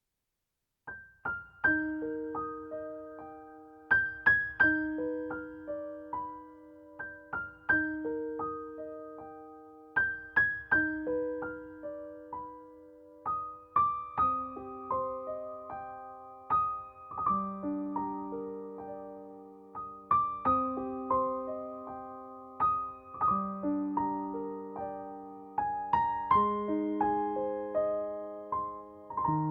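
Background piano music: gentle broken chords of single struck notes, each ringing and fading, starting about a second in.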